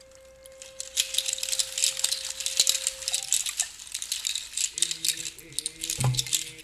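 A hand rattle shaken steadily, a dense clatter of many small hard pellets, starting about a second in. A steady low hum runs under the first half, and a short low thud sounds near the end.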